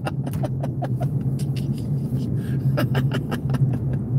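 Steady low hum of a car's road and engine noise inside the cabin while driving, with scattered faint clicks.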